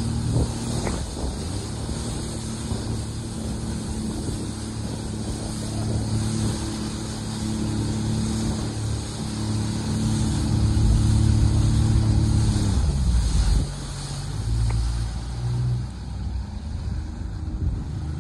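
Jet ski engine running at a steady high pitch, with wind buffeting the microphone and water rushing past. About thirteen seconds in the engine note drops and it runs on slower and quieter.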